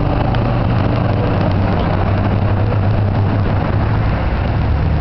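Jet airliner coming in to land: a loud, steady rushing noise over a low hum.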